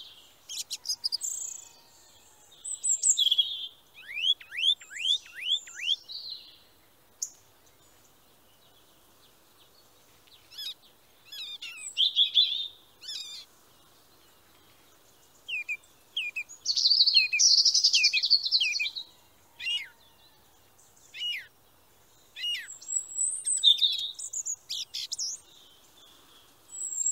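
Small songbirds singing: bursts of high chirps and trills, including a run of quick falling notes, with pauses of a few seconds between phrases.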